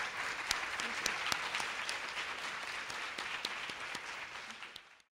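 Audience applauding, a dense patter of many hands clapping that fades in the last second and then cuts off abruptly.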